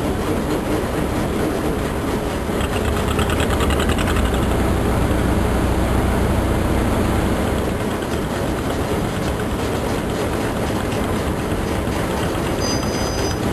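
River tour boat's engine running steadily under way, with the rush of water and air as the boat moves; the deep rumble eases a little about eight seconds in.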